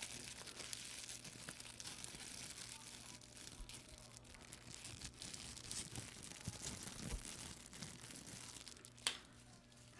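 Plastic wrapping on a new boxed card deck being torn and crinkled by hand: steady crackling with many small clicks and one sharper crack near the end.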